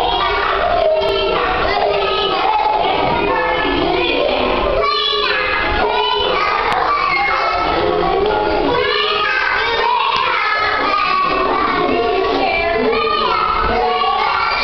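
Music with children singing, several voices together, running steadily without a break.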